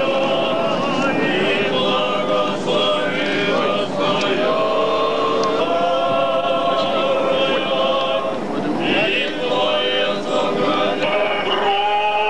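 A choir singing Russian Orthodox liturgical chant during the blessing of a ship with holy water: several voices holding long, slow notes that move together, with a brief breath about nine seconds in.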